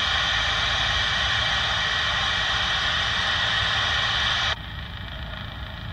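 Radio static hiss through a two-way radio's speaker, with no voice on it, cutting off suddenly about four and a half seconds in. A low steady rumble runs underneath.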